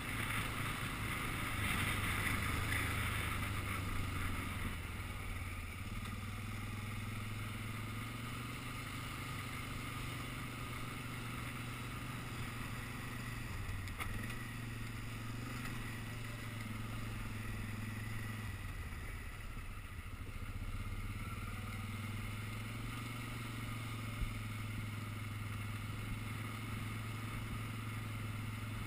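ATV (quad) engine running steadily while the quad rolls over a gravel track, its engine note shifting a few times. A rougher rushing noise is louder over the first few seconds.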